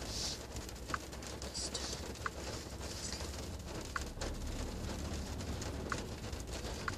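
Rain pattering on a car's metal roof, heard from inside the car: a steady hiss with single drops ticking every second or two.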